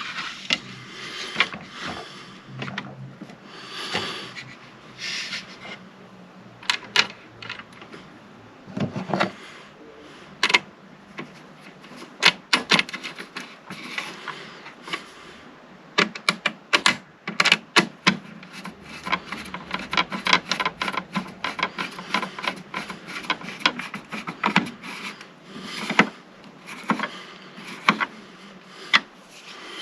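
Handling noise from fitting a circular saw onto a Kreg circular saw guide jig and clamping it down: many sharp clicks and knocks of parts being set in place, with rubbing and scraping between them.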